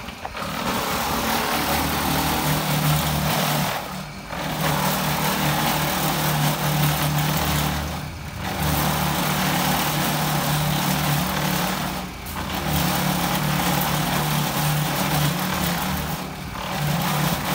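Concrete mixer running steadily with a low hum, its noise dipping briefly about every four seconds.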